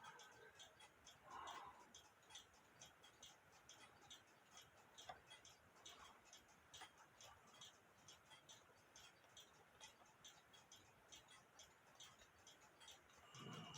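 Faint, steady ticking of a mechanical clock, a regular run of light ticks.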